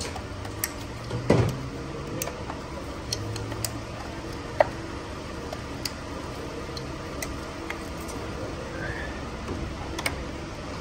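Plastic wiring-harness connectors being handled and plugged in on an engine: scattered light clicks and rattles, one sharper click a little past halfway, over a steady low hum.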